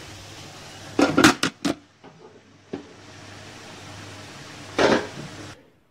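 Cookware being handled: a quick run of four sharp clacks about a second in, a lone click, and a louder clatter near the end, over a steady hiss that cuts off suddenly just before the end.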